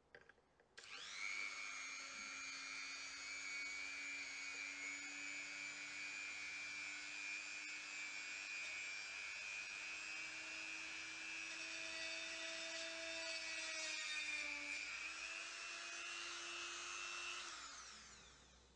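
Dremel rotary tool switched on about a second in, running with a steady high whine, then switched off near the end, its pitch falling as it spins down.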